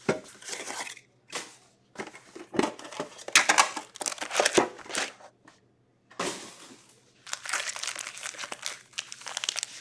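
Plastic wrap and foil trading-card packs crinkling and crumpling in the hands as a card tin is unwrapped and opened, in irregular bursts with short pauses between them.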